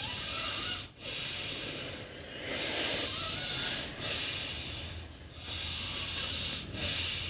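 A man doing bhastrika pranayama at a gentle pace: deep breaths drawn in and pushed out one after another. There are about six airy breath sounds, each about a second long, with a short break between them.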